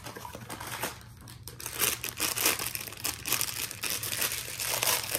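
A black wrapper from a blind box being crinkled and torn open by hand, with dense crackling from about two seconds in.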